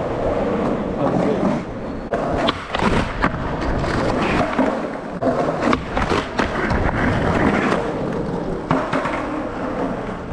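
Skateboard wheels rolling over rough pavement, with several sharp clacks of the board striking the ground.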